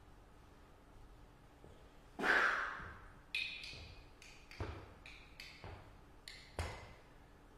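A person's loud breathy huff about two seconds in, then a run of short sharp taps and knocks, a few with a low thud, as they move about on a stage floor.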